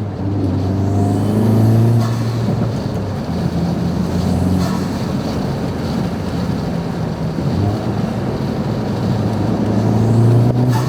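Turbocharged 2.0-litre four-cylinder of an Acura Integra Type S under way, a steady low engine drone with the pitch rising and falling as it revs.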